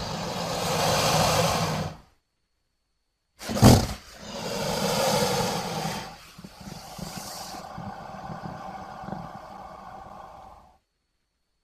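Crocodilian vocalization sound effects in two separate takes, each cut off abruptly into silence. The first lasts about two seconds. The second opens with a sharp, loud burst, drops to a quieter drawn-out sound at about six seconds, and runs on until near the end.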